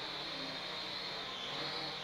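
Small quadcopter drone's propellers buzzing in flight, a steady high whine that wavers a little in pitch.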